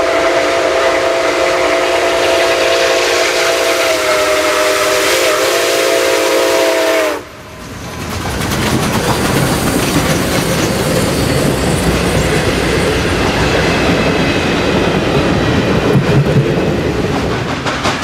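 Nickel Plate Road 765's steam chime whistle blowing one long chord of several notes, which breaks off suddenly about seven seconds in. Then the 2-8-4 Berkshire steam locomotive rolls past with a steady rumble of wheels on rail.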